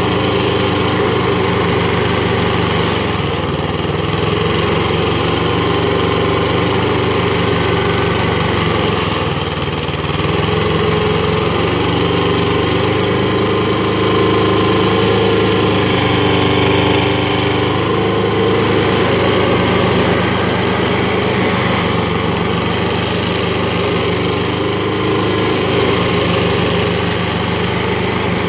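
Petrol engine of a Predator stump grinder running under load while its toothed cutter wheel chews through an old oak stump, a steady engine note under the dense noise of wood being chipped. The load eases and builds a little as the wheel is swept across the cut.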